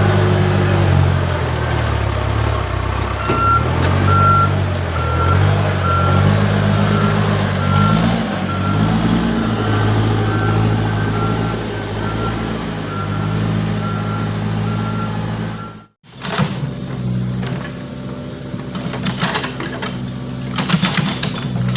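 Backhoe loader's diesel engine running under load, its pitch rising and falling, with a reversing alarm beeping about twice a second from about three seconds in. The sound cuts off abruptly about two-thirds through and gives way to engine running with sharp clattering knocks.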